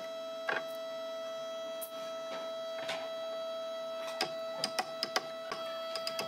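An electric woodworking machine running with a steady whine, with irregular sharp clicks and knocks over it.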